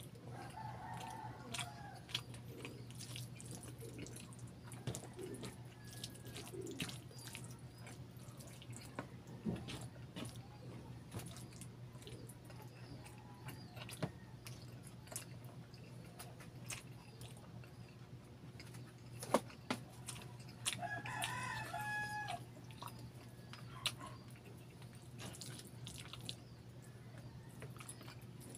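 Close, wet chewing and lip-smacking of a person eating saucy rice and chicken, with many small sticky clicks. A rooster crows in the background about three-quarters of the way through, over a steady low hum.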